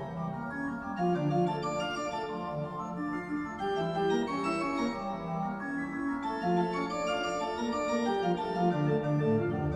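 Background music played on an organ, a steady run of changing notes and chords.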